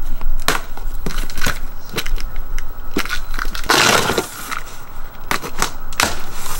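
A cardboard shipping box being torn open by hand: crackling, creasing and scraping of cardboard and packing tape, with a longer ripping sound about four seconds in.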